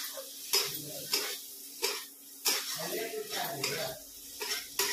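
Metal spatula scraping and clinking against a steel kadhai as a thick onion, tomato and pea masala is stirred. The strokes are sharp and come about every half-second for the first half, with another near the end.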